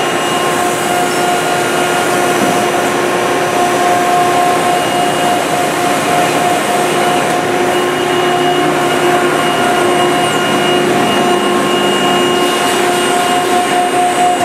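Steady whirring hum of running machine-shop machinery, with several steady tones held throughout and no pauses.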